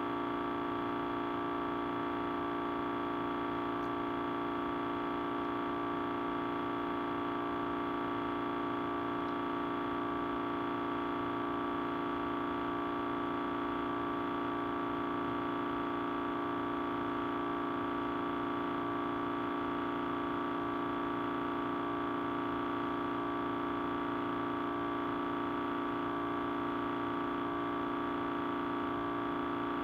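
Sustained audio feedback from a microphone and speaker loop: a steady drone of several held tones at an even level, the strongest low with a higher tone above it.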